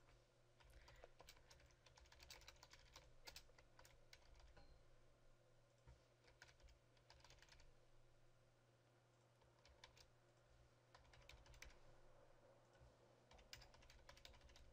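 Faint typing on a computer keyboard, keystrokes coming in bursts with a short lull about eight seconds in.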